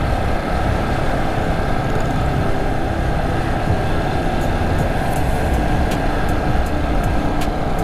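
A vehicle travelling steadily along the road, its running noise loud and even throughout.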